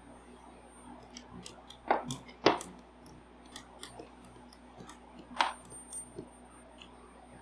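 Small objects handled on a table: scattered light clicks with three sharper knocks about two, two and a half and five and a half seconds in. A faint steady high whine runs underneath.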